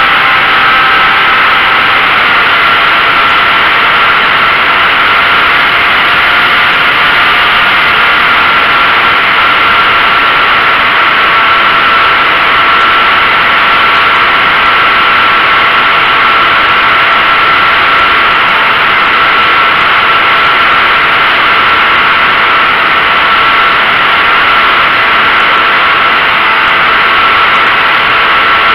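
Model airplane's motor and propeller running steadily, with a steady whine over loud wind rush on the onboard microphone; the whine dips slightly in pitch about two seconds in.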